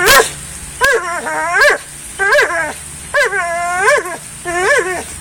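Pit bull whining in four drawn-out, strained calls about a second apart, each rising in pitch at the end, after a short sharp sound at the start. It is vocalising through a clenched, locked jaw while hanging from a tree by its bite.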